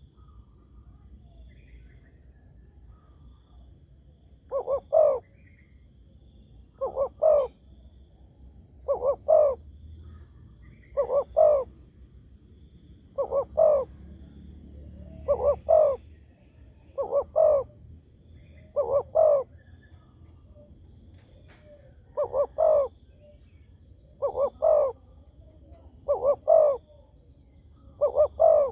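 Spotted dove (tekukur) cooing: a short call of two or three quick notes, repeated about every two seconds, starting about four seconds in. It is the kind of call played to get other spotted doves to answer.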